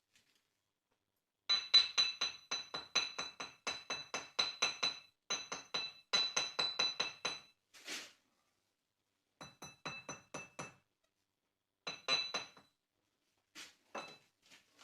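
Rapid tapping of a steel bricklayer's trowel on brick, each tap ringing briefly, about eight taps a second in runs of a few seconds: wedge bricks being tapped down into mortar to set them in an arch.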